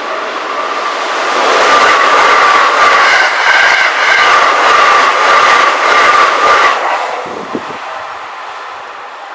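A Keikyu Main Line train passes a railroad crossing at high speed: a loud rush of wheels on rail with the clickety-clack of rail joints and a steady whine. It comes up about a second and a half in and fades away after about seven seconds. The crossing's warning bell rings at the start.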